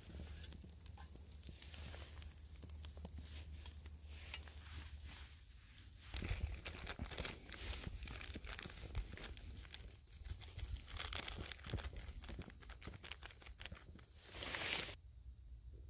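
Plastic zipper bag crinkling and rustling as it is handled and chopped green onions are shaken out of it, with a louder rustle near the end.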